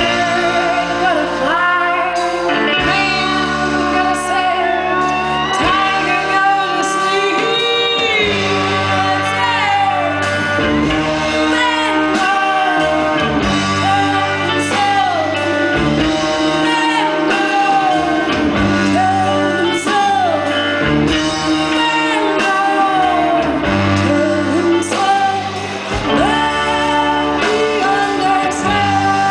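Live band music: a woman singing into a microphone over guitar and band accompaniment, her voice often sliding down in pitch at the ends of phrases.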